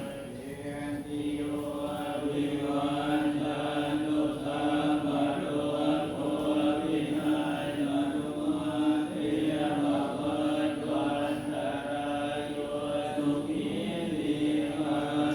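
Buddhist monks chanting Pali verses in unison, many voices held on one steady pitch.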